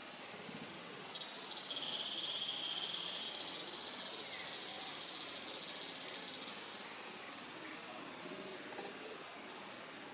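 Insects, cricket-like, trilling in a steady high-pitched chorus, with a second, slightly lower trill joining for about two seconds near the start.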